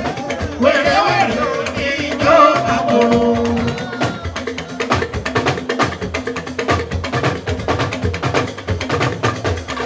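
Live Fuji band: a man's voice singing over dense hand-drum percussion for the first three seconds or so, then the percussion and bass carrying on without the voice.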